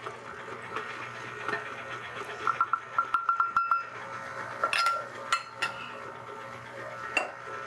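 KitchenAid stand mixer running with a steady low hum as its beater works browned butter. Over it come a run of rapid light ticks in the middle and a few sharp clinks of a metal measuring cup against a glass bowl as flour is scooped into the mixer.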